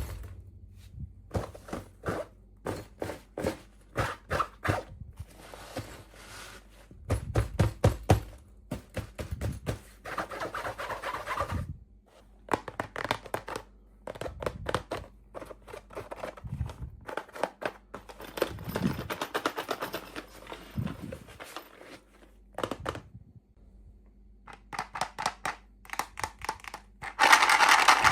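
Plastic toy packaging being handled and opened: a run of small clicks and taps, with stretches of crinkling and tearing of wrappers between them, the loudest crinkling near the end.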